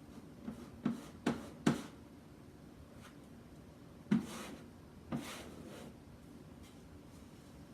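Plastic squeegee working chalk paste over a silk-screen stencil: three quick taps or short scrapes, then two longer scraping strokes a second apart.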